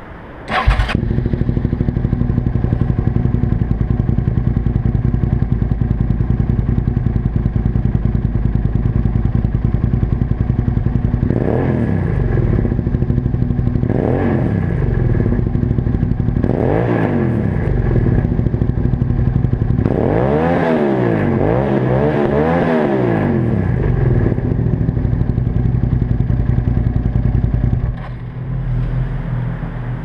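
2001 Suzuki SV650S 90-degree V-twin with a Laser Duo-Tech titanium slip-on exhaust, standing still. It comes in sharply about half a second in and idles, then is blipped up and back down three times, then revved several times in quick succession. It settles back to idle and drops away near the end, with echo off the concrete walls of an underpass.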